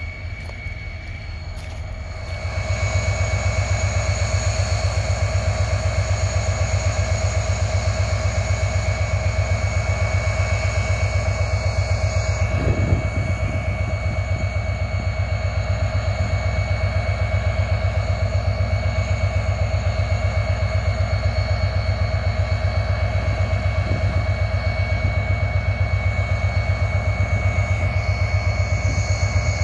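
Phosphate hopper wagons roll past for the first couple of seconds. Then an EMD GT26 HCW-2A locomotive's two-stroke diesel idles with a steady low throb and a constant whine over it. There is a single short clank about thirteen seconds in.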